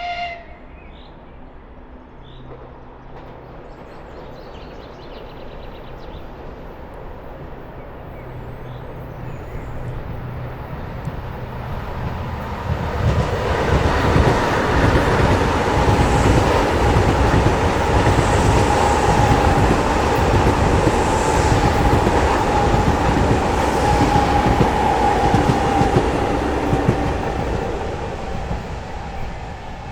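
Ivolga (EG2Tv) electric commuter train passing close by: wheel and rail noise with clatter builds up, is loud for about a quarter of a minute with a steady high whine from its traction equipment over it, then eases off near the end.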